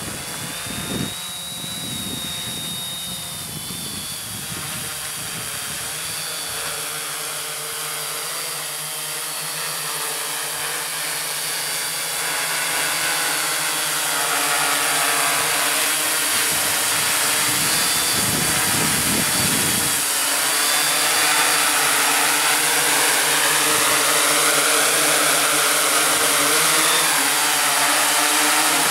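Hexacopter's six motors and propellers whirring in flight, with several whining tones that rise and fall as the throttle changes. It grows louder as the craft comes in low and close. Low gusts of wind hit the microphone in the first couple of seconds and again about two-thirds of the way through.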